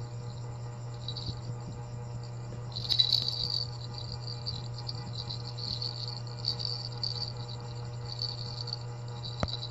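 Baby's plastic rattle toy being handled, giving a light, high rattling jingle that comes and goes and is strongest about three seconds in. A steady low hum runs underneath.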